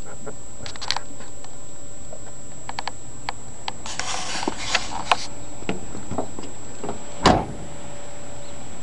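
Nissan 720 pickup's driver door being opened, with scattered clicks and a brief rustle, then shut with a single loud thud about seven seconds in.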